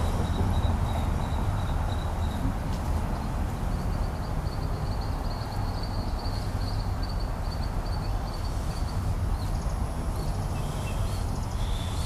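Steady low outdoor rumble, with a faint high, rapidly pulsing trill over it that stops about three-quarters of the way through.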